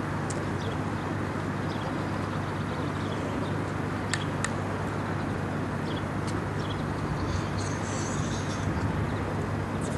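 Steady outdoor background of distant city traffic rumble, with faint bird chirps and two sharp knocks in quick succession about four seconds in.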